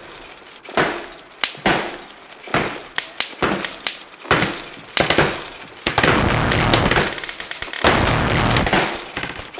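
A quick string of sharp bangs, each dying away with a short tail, coming faster and closer together, then from about six seconds a dense, continuous loud din of noise.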